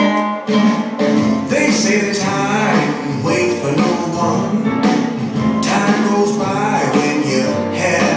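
A blues song with guitar playing at full volume. A sparse guitar intro gives way to the full band about half a second in.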